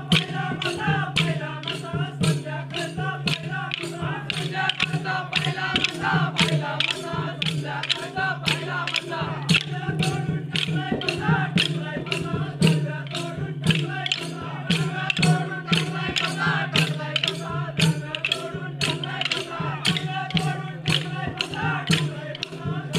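Group folk singing over drums and jingling percussion, the strokes keeping a steady beat of about three a second, with a steady low hum beneath.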